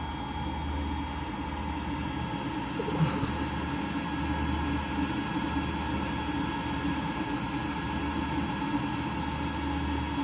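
Flashforge 3D printer's fans whirring steadily after the print has finished, a steady whir over a low hum, with one brief click about three seconds in.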